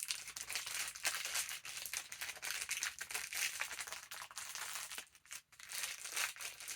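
Packaging bag of a Funko Pocket Pop blind-bag figure crinkling and crackling as it is handled and opened. There is a brief lull about five seconds in.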